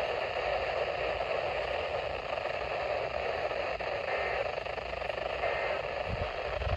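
Steady static hiss from a weather radio receiver tuned to a weak NOAA Weather Radio station, with a few low rumbles near the end.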